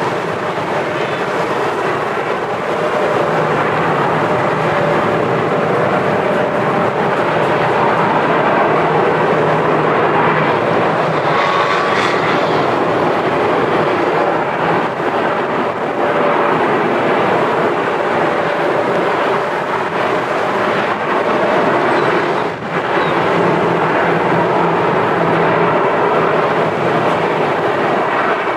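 Jet airliner engines running steadily: a constant loud rushing noise with a faint steady whine through it.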